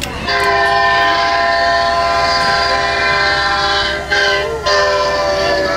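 Recording of a Leslie SL-4T locomotive air horn, played from a push-button exhibit display: a loud, steady chord of several notes sounding together. It breaks off briefly twice about four seconds in, then sounds again.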